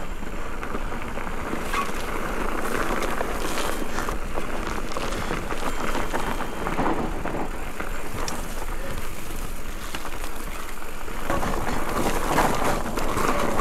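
Electric mountain bike descending a loose, dry dirt trail: tyres crunching and sliding over loose gravel, with frequent knocks and rattles from the bike over bumps.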